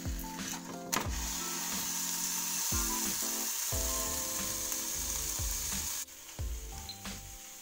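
A foil packet of salmon sizzling in a hot pan, the hiss starting with a sharp knock about a second in as the packet is flipped and cutting off about six seconds in.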